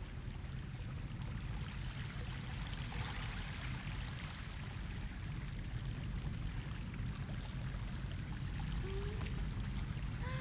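Steady rushing noise like running water over a low rumble, with a brief voice sound about nine seconds in.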